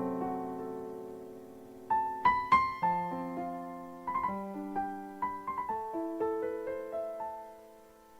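Background piano music: a held chord fading away, then a gentle run of struck notes and chords that dies down near the end.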